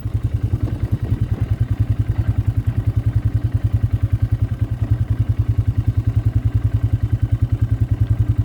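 Engine of a small farm vehicle running steadily at low speed, with a fast, even beat of firing pulses.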